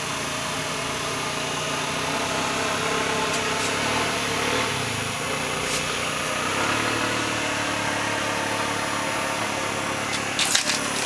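A steady machine-like drone with a faint hum in it, unchanging throughout. A few sharp clicks or knocks come about ten and a half seconds in.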